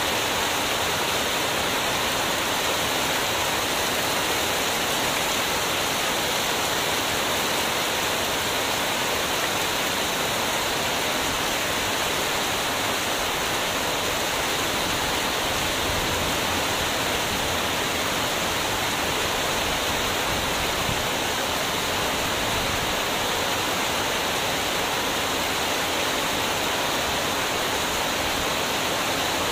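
Heavy rain pouring steadily: a dense, even hiss with no let-up.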